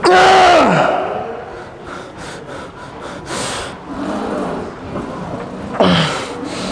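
A man grunting and breathing hard as he strains through reps on a heavy leg press. A loud grunt falls in pitch at the start, breathy exhales follow, and another short grunt comes near the end.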